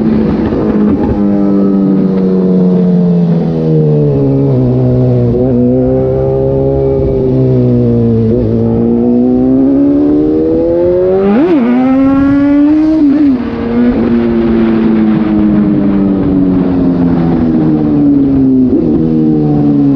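Suzuki GSX-S750's inline-four engine through an SC-Project slip-on exhaust with the dB killer removed, running loud under way. Its pitch sinks and climbs several times as the throttle is rolled off and opened, with a quick sharp rev blip about eleven seconds in.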